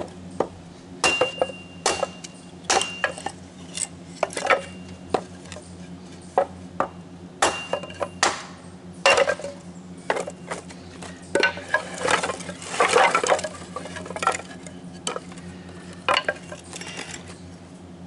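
Scrap board offcuts being handled and knocked together: irregular sharp wooden knocks and clatters, some with a short ringing note, with a denser run of clatter about two-thirds of the way through.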